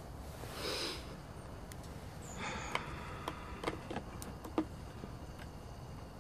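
A man sniffs once through his nose in the first second. A few sparse, sharp clicks follow over the next few seconds.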